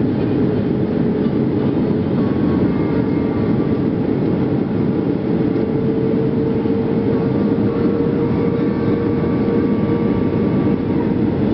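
Airliner cabin noise heard from a window seat on the approach to landing: a loud, steady rush of engine and airflow noise with a steady humming tone running through it.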